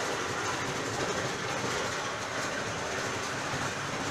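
Electrically driven wooden chekku (cold-press oil mill) running, its motor and drive turning the pestle in the mortar with a steady mechanical noise and faint irregular ticks.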